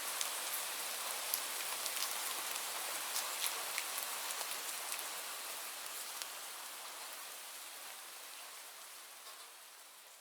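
Steady rain with individual drops ticking sharply over the hiss, fading out gradually through the second half.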